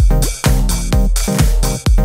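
Background music with a steady, fast beat: a bass-heavy kick about twice a second under electronic instruments.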